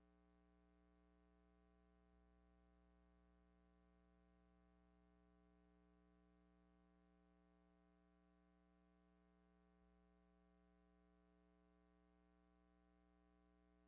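Near silence, with only a faint steady hum and hiss on the otherwise soundless track.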